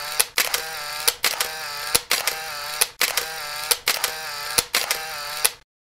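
Camera shutter sound effect: a sharp click followed by a short whirring wind, repeated about once a second, cutting off abruptly near the end.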